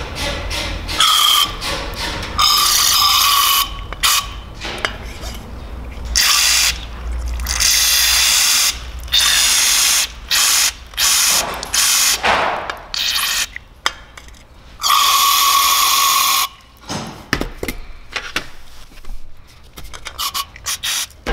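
About eight short bursts of aerosol cleaner spray hissing into BMW S54 VANOS solenoid valves, each starting and stopping sharply and some carrying a whistling tone, with small clicks between them as the valves are switched open and closed to flush them clean.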